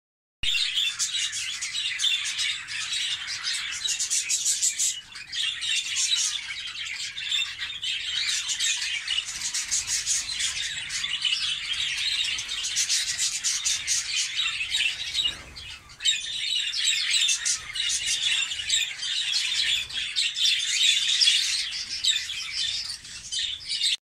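A flock of budgerigars chattering and chirping continuously. The many overlapping high calls briefly drop away about two-thirds of the way through.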